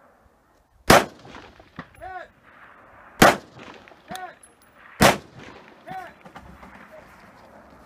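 Three rifle shots about two seconds apart, each followed about a second later by the faint ring of a distant steel target being hit.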